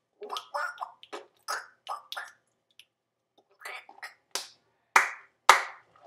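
A child making short wordless vocal noises, then three sharp knocks about half a second apart, the last two the loudest.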